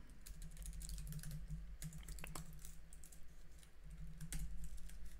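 Typing on a computer keyboard: irregular keystrokes as code is edited, over a low steady hum.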